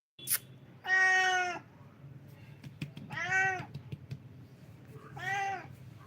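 A cat meowing three times, about two seconds apart. The first meow is the longest and loudest, and the later two rise and fall in pitch. A short sharp sound comes just before the first meow.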